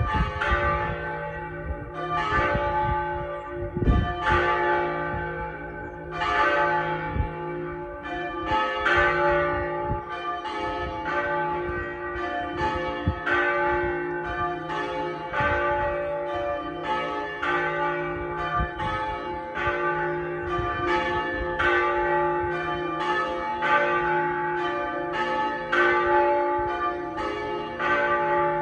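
Pershore Abbey's tower bells ringing, only a few bells of the ring in use, struck one after another about twice a second with their tones ringing on over each other. A loud low thump comes about four seconds in.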